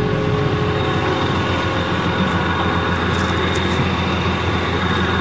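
Large engine running steadily at an even speed.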